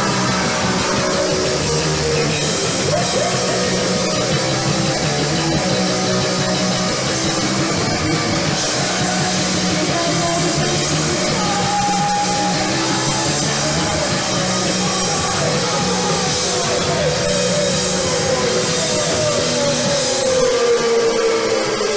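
Live rock band playing loud, with electric guitar, bass and drum kit. A note slides down in pitch near the end.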